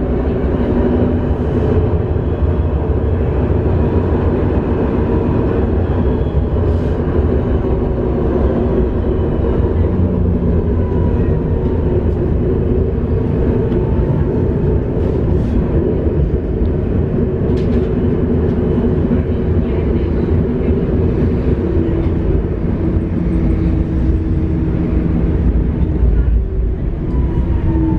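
Nuremberg tram running between stops, heard from inside the car: a steady rumble of wheels on rails under the whine of the electric traction motors, which shifts slightly in pitch now and then, with a few faint clicks.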